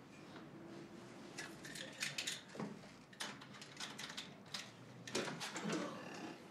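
Faint scattered light clicks and rustles over a low room hiss, as small objects or fabric are handled.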